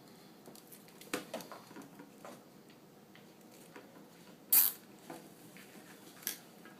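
Nylon cable tie being threaded and pulled tight around stacked laptop power supply bricks: a few sharp plastic clicks, the loudest a short rasp about halfway through.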